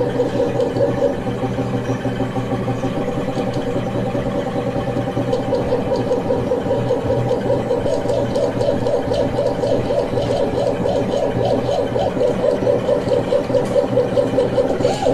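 Stepper motors of an Arduino-controlled CNC machine running: a steady mechanical whine with a fast flutter, going on without a break.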